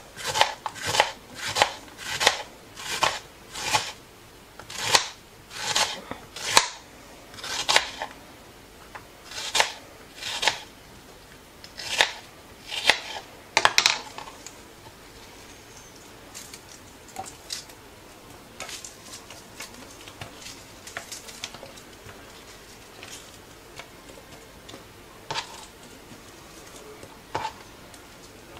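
Kitchen knife slicing an onion on a plastic cutting board: sharp knocks of the blade on the board, about two a second at first, slowing and stopping about halfway through. After that there are only faint, scattered taps.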